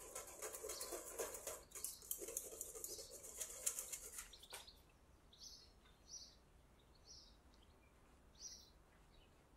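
Wire whisk stirring flour through a fine-mesh metal sieve: a rapid, fine scratching and tapping of wire on mesh, ending with a single knock about four and a half seconds in. After that come a few faint, short swishes of a silicone spatula in the flour.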